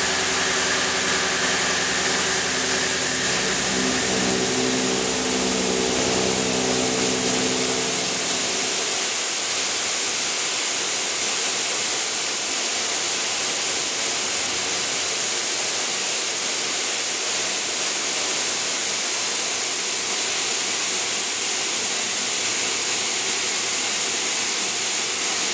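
CNC milling machine face-milling the end of an iron H-beam: the spindle and cutter give several steady tones over a loud hiss. About eight seconds in the cutting tones stop and an even, steady hiss carries on.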